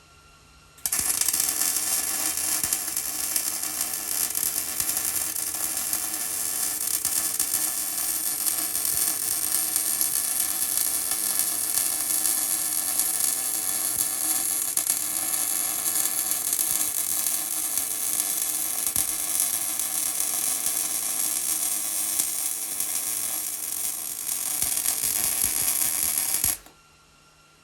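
Millermatic 190 MIG welder's arc running one continuous bead: a steady crackling hiss that starts about a second in and cuts off suddenly near the end.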